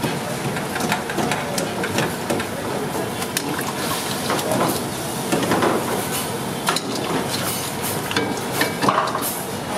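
Street-stall cooking clatter: metal utensils clanking and scraping against a pan at irregular intervals over a steady sizzling hiss.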